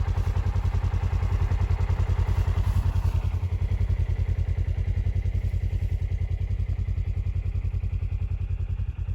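Polaris Ranger XP1000 side-by-side's engine idling with a steady, rapid low pulse.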